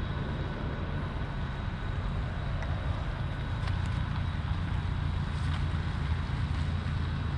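Steady low engine rumble heard from a distance, even and unchanging, with a few faint steady tones above it.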